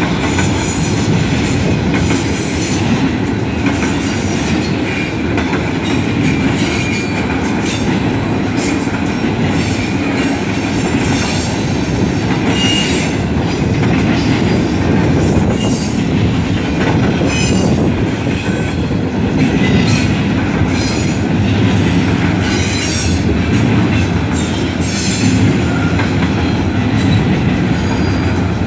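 Double-stack intermodal freight cars rolling past: a steady, loud rumble of steel wheels on rail, broken by irregular clicks and clanks and a few short high-pitched wheel squeals.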